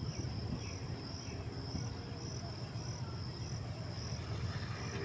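An insect trilling steadily, its high buzz swelling in a regular pulse a little under twice a second, over a low rumble.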